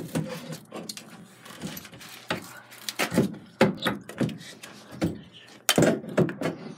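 Irregular knocks and clatters, hard objects bumping and rattling, with the loudest pair of knocks just under six seconds in.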